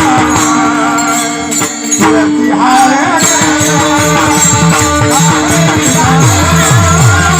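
Bhajan music: jingling hand cymbals and a drum rhythm over steady held notes. The sound thins out briefly just before two seconds in, then picks up again.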